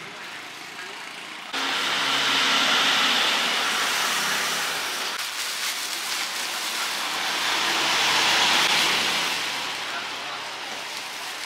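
Street traffic passing close by: a steady rushing noise that starts suddenly and swells twice as vehicles go past.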